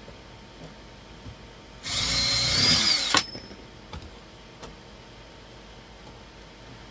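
Cordless drill running in one short burst of just over a second, driving a screw into the wall, its motor whine rising and then dipping slightly as it stops. A few light clicks follow.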